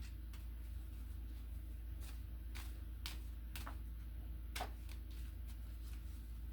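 Tarot cards being handled and shuffled: scattered, irregular soft clicks and snaps over a steady low hum from a room heater.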